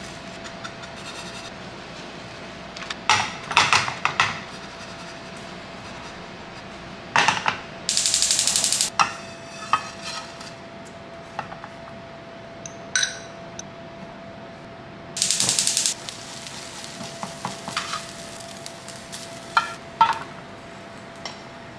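A spatula scraping and tapping a frying pan while a tapioca crepe is spread and cooked, with two longer spells of quick scraping about a third and two thirds of the way through. A faint steady hum runs underneath.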